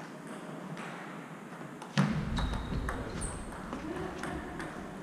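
Table tennis balls clicking against bats and tables in a sports hall, as sharp scattered ticks. About two seconds in there is a single loud thump with a short low rumble after it.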